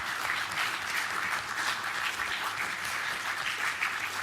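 A roomful of people applauding: steady, dense hand clapping with no break.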